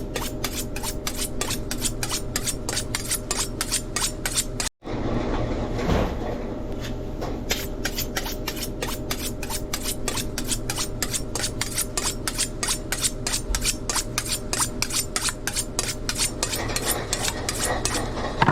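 Metal utensils clacking steadily on a steel teppanyaki griddle as steak is cut, about four to five clicks a second over a steady hum. The sound cuts out for an instant about five seconds in.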